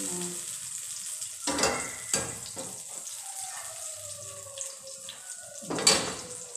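A steady kitchen hiss, like food frying or water running, with a few sharp knocks and clatters of a cutting board and utensils, about one and a half, two and six seconds in.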